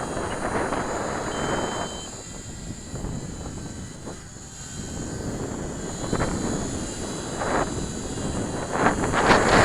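The twin small electric motors and propellers of a micro RC P-38 model plane whining high and steadily in flight. Wind gusts buffet the microphone in uneven swells, loudest near the end.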